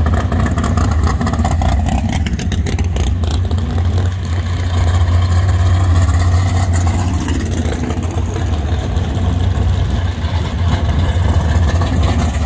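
Competition-eliminator drag cars' engines running loudly at low speed as the cars drive past one after another, a deep, steady rumble.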